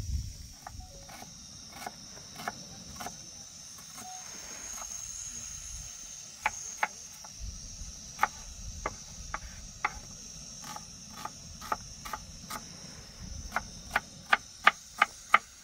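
Hammer strikes on building stone: irregular sharp knocks that quicken into a fast run of about six loud strikes near the end. Crickets chirp steadily underneath.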